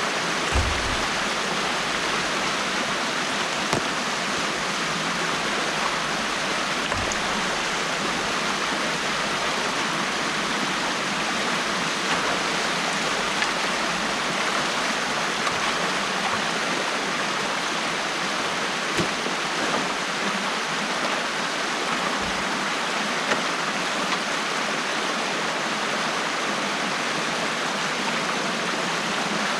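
Stream water rushing steadily through an opening in a beaver dam, with a few soft low thumps.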